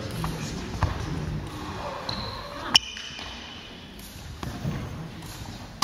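Badminton hall between points: low background murmur from the hall, with a few light taps and one sharp click that rings briefly, about halfway through.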